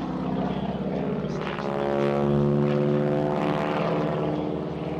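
North American T-6 Texan's nine-cylinder Pratt & Whitney R-1340 Wasp radial engine and propeller running with a steady drone, growing louder about halfway through and then easing back.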